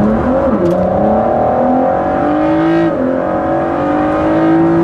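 Ford GT's twin-turbo V6 heard from inside the cabin under hard acceleration. The engine pitch climbs and drops with an upshift about half a second in, climbs again to a second upshift about three seconds in, then climbs once more before the throttle is lifted at the end.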